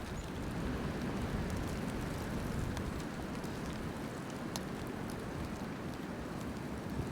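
Steady rushing noise of a nor'easter snowstorm's wind, heaviest at the low end, with a few faint scattered ticks.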